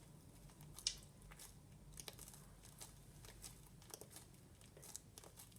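Faint sticky crackles and small clicks of butter slime being stirred and worked by hand, with one sharper click about a second in.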